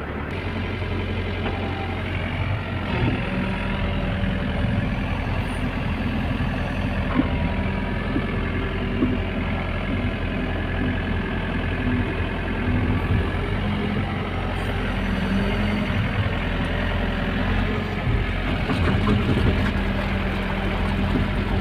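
Heavy diesel engine running steadily at work, with a few light knocks.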